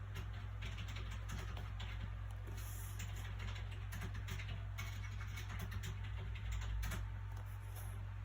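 Soft, irregular rustles and light clicks of book pages being handled, over a steady low background hum.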